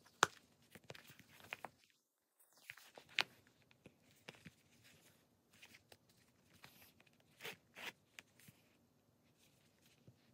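Hands handling a small leather snap wallet: a sharp click at the start as its metal snap button is popped open, another click about three seconds in, and soft rubbing and flapping of the leather as it is folded open.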